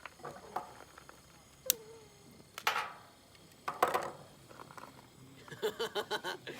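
A few sharp knocks or clatters from handling things while cooking, then a person chuckling near the end.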